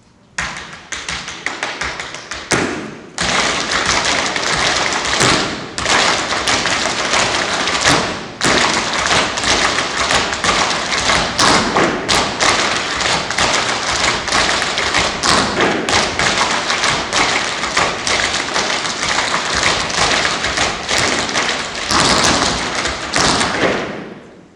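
Tap dancing: a dense, rapid stream of tap-shoe taps and stamps on a hard floor. It starts about a second in, gets much louder around three seconds, and fades out near the end.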